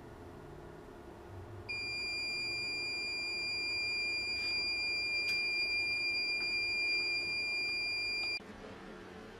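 Alarm buzzer of a Felicity IVEM5048 solar inverter sounding one steady high-pitched tone for about seven seconds, starting about two seconds in and cutting off suddenly: the inverter's fault alarm, here for fault code 03, bus soft start fail.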